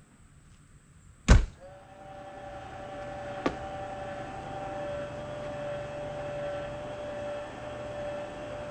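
A car door slams shut about a second in, followed by a steady low hum with a whine that builds over the next couple of seconds, and a single sharp click partway through: a vehicle's motor and fan running inside the closed cabin.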